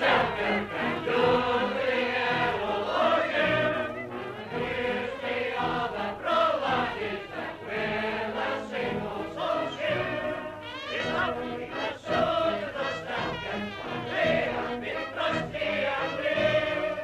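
Choral music: a choir singing with instrumental accompaniment.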